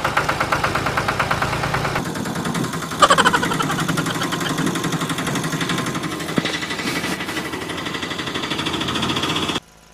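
Vehicle engine idling and running with a fast, even pulse. A different engine sound starts about three seconds in with a brief falling whine, and the sound cuts off abruptly near the end.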